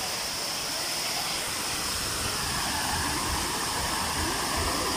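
Waterfall pouring into a rock-walled plunge pool, a steady rush of falling water, with a low rumble joining in about halfway through.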